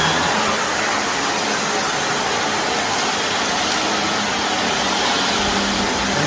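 Shark vacuum cleaner running steadily on carpet, with a faint steady hum under the rush of its motor and airflow.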